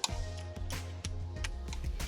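Background music with a steady bass line and sharp ticking clicks.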